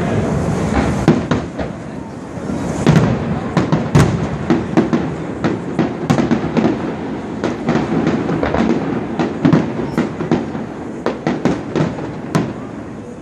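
Aerial fireworks going off in rapid succession: dozens of sharp bangs and crackling reports over a continuous low rumble of echoing booms.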